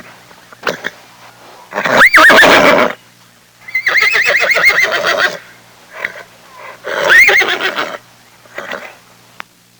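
Horse whinnying: three loud whinnies, the middle one long and quavering, with a few short quieter sounds between them.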